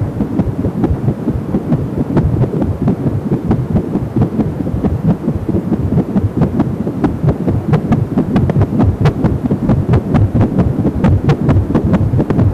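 Unborn baby's heartbeat picked up by an AngelSound home fetal Doppler and played through its speaker as a steady low pulsing, with scattered sharp clicks in the second half.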